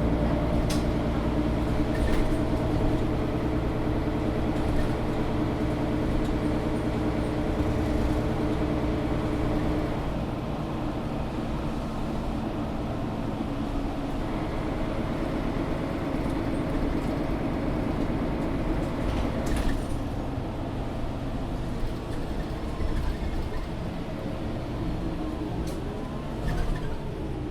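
Inside a Mercedes-Benz O530 Citaro G articulated bus under way: the diesel engine and drivetrain run steadily with road rumble, and the engine note eases off about ten seconds in. There are a few brief clicks and rattles.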